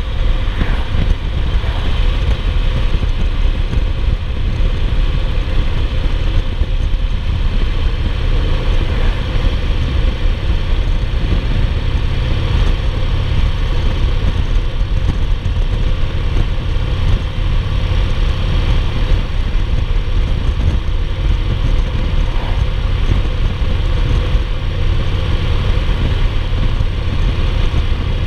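2008 Yamaha Roadliner (XV1900) air-cooled V-twin running steadily at highway cruising speed, a constant low engine rumble mixed with wind and road noise.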